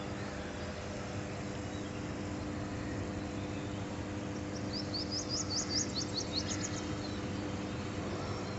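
Steady low electrical hum of substation power transformers, a few even tones held together over a background haze. From about five seconds in a bird gives a quick series of rising chirps.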